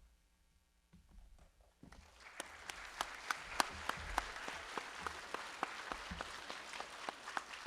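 Audience applauding. The clapping starts about two seconds in after a near-quiet pause, quickly fills out with many sharp individual claps, and keeps going.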